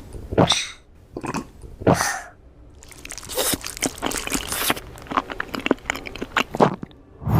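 Eating sounds: biting and chewing tteokbokki. There are a few separate bites in the first two seconds, then a dense run of quick, crackly chewing noises from about three seconds in.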